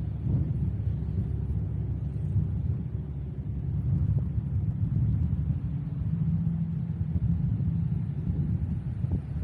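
Steady low rumble of a road vehicle on the move.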